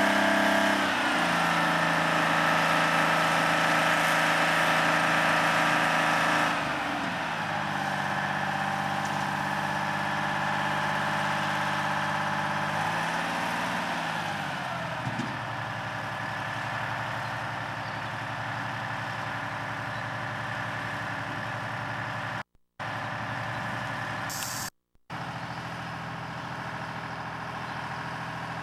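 Engine of a large drilling rig running, its speed and pitch dropping in steps a few times and then settling to a lower, steadier run. The sound cuts out briefly twice near the end.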